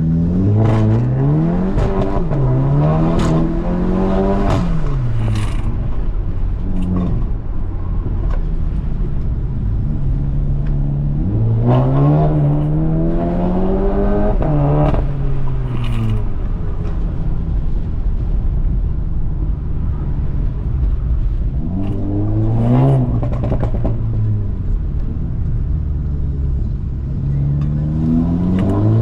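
Volkswagen Jetta GLI's turbocharged 2.0-litre four-cylinder engine driven hard, its pitch climbing under acceleration and dropping away again, several times over.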